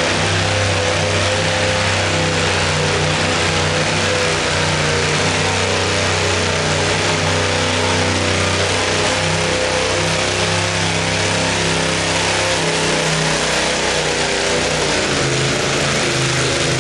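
Garden pulling tractor's engine running hard under load as it drags a weight-transfer sled, a loud steady drone whose note shifts about twelve seconds in.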